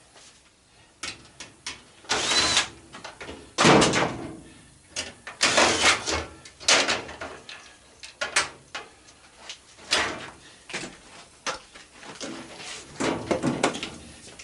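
Irregular clanks, knocks and scraping of metal and plastic parts as a washing machine is taken apart by hand, with the loudest knocks about 2, 4 and 6 seconds in and smaller clicks between.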